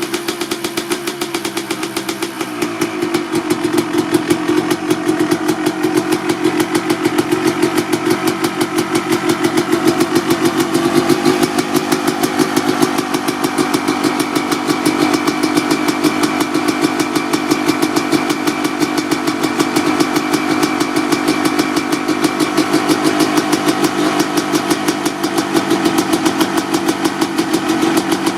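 1995 Honda CR250R's single-cylinder two-stroke engine, breathing through a stock header and a Pro Circuit R-304 silencer, running steadily as it warms up after a cold start. It gets a little louder about two and a half seconds in, then holds an even, rapid firing beat.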